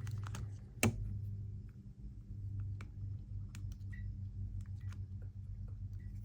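Small sharp clicks and taps of repair tools and small parts being handled on an iPhone during a screen replacement, with one louder click about a second in, over a steady low hum.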